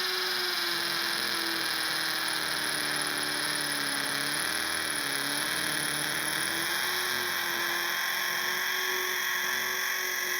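Electric drill boring a 3/8-inch hole for a wedge anchor, its motor running steadily, with the pitch dipping slightly under load about four to five seconds in.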